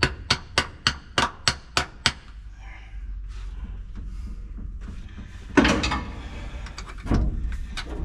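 A big flat screwdriver tapping and knocking at a battery's cable clamp and post: about eight sharp metal taps in the first two seconds, then two louder scraping clunks a few seconds later.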